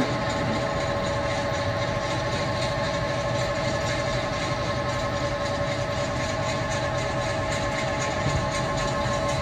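Electronic drone music of a light-projection show played over loudspeakers: a steady held chord over a low rumble, with a faint regular pulse.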